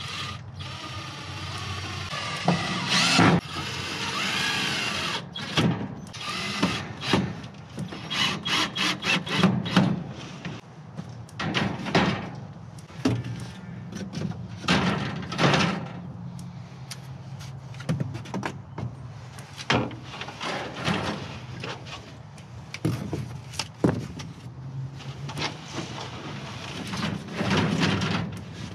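A cordless drill runs for a few seconds with a whine that rises and falls, driving screws to fix wire mesh onto a chicken coop's nest-box shelf. Then comes a long string of knocks, clatters and scrapes as plastic crates are set down and shifted about on the mesh.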